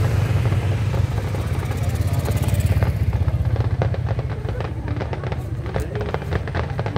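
A steady low rumble with a run of sharp, crackling pops starting about three seconds in.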